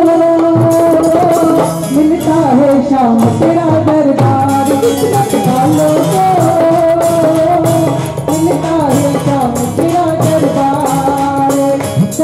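Live devotional bhajan music played through PA speakers: a sustained melodic line over a steady drum beat.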